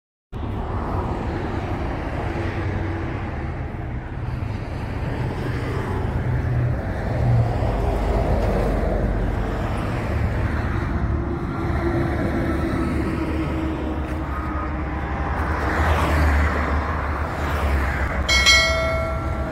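Road traffic: vehicles running past on a highway with a steady low rumble of engines and tyres, swelling twice as vehicles go by. A vehicle horn sounds briefly near the end.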